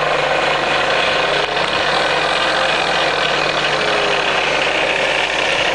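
Spindle of a three-phase Bridgeport vertical turret mill with a variable-speed head running steadily in low range (back gear engaged), a constant machine hum with several steady whining tones.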